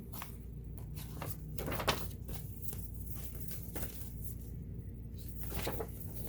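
Scattered light clicks and knocks of hands handling parts of a vintage Kenmore 1802 sewing machine during cleaning and oiling, over a low steady hum.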